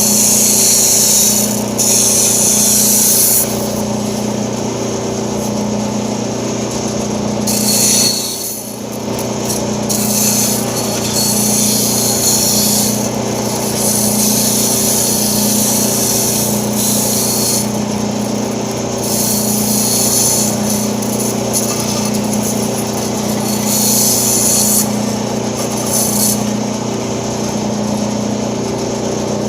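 Band saw running with a steady motor hum while its blade cuts high-density styrofoam; a high hiss from the cut comes and goes as the foam is fed through and eased off.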